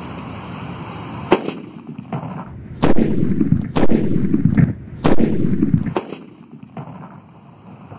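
A sutli bomb (twine-wrapped firecracker) exploding inside an empty coconut and shattering it. A sharp crack comes a little over a second in, then three loud booms about a second apart, each trailing off in a low rumble.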